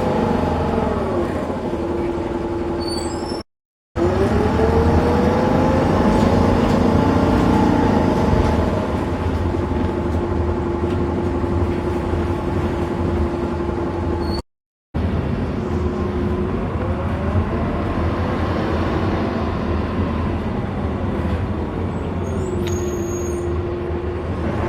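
Optare Solo bus's Mercedes diesel engine and Allison automatic gearbox under way: a low engine drone with a whine that rises and falls several times as the bus pulls away and shifts, and holds steady in between. The sound drops out briefly twice.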